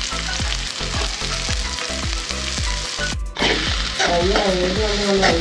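Sliced onions sizzling in hot ghee in an aluminium pot, stirred with a steel spatula that scrapes and clicks against the pan. Background music plays underneath.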